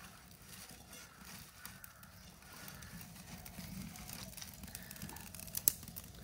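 Small wood fire of thin sticks being started, with faint crackling and scattered snaps and one sharper crack near the end.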